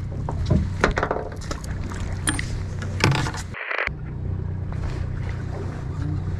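Boat engine running with a steady low drone, overlaid by scattered clicks and rattles of fishing tackle being handled. The sound cuts out briefly a little past halfway.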